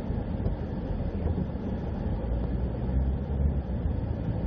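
Steady low rumble of a vehicle driving along a road, engine and tyre noise with no sharp changes.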